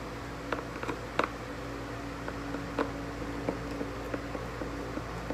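Scattered plastic clicks and taps from a screwdriver and hands working on a car headlight housing, removing its parts, over a steady background hum.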